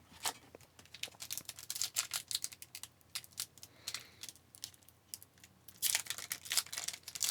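Hockey trading cards being handled and flipped through by hand: scattered light clicks and snaps of card stock, coming faster near the end.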